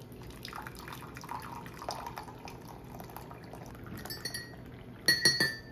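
Hot water poured from a kettle onto loose tea in a paper filter set in a glass pour-over cone, trickling down into a ceramic teacup for about four seconds. Then a light clink, and a louder ringing clink about five seconds in.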